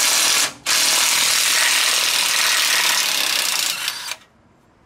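Cordless electric ratchet running under power, spinning out a steering gear mounting bolt: a short run that stops about half a second in, then a longer run that cuts off about four seconds in.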